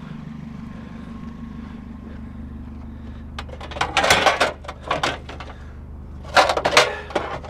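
Car engine idling steadily while scrap aluminum pieces are handled and loaded, clattering in two bursts: one about four seconds in and a louder one near the end.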